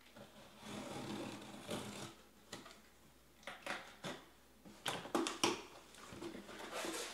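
Trading cards and foil pack wrappers being handled: irregular rustling with sharp clicks and taps, a quick run of clicks about five seconds in.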